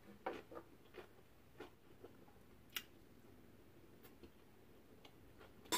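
Faint, scattered clicks and taps of a metal spoon and chopsticks against bowls and dishes, with one sharper click near the end.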